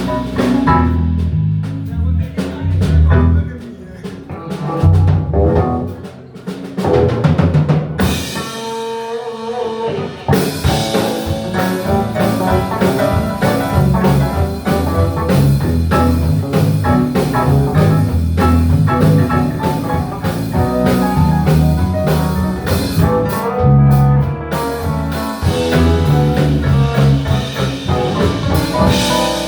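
Live band playing a blues number with drum kit and bass. About eight seconds in, the low end drops out briefly before the full band comes back in.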